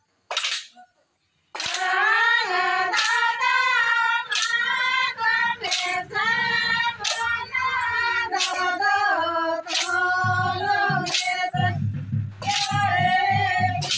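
A group of women singing a Sohrai festival song together, starting about a second and a half in, with sharp strikes keeping a steady beat about once a second.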